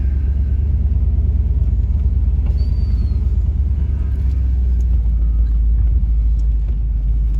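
Steady low rumble of a car on the move, heard from inside the vehicle.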